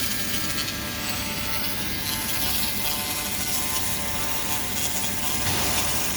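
A 100–200 W laser cleaning machine working on a surface: a steady high hiss with a steady whine of several tones over it, the whine stopping about five and a half seconds in while the hiss carries on.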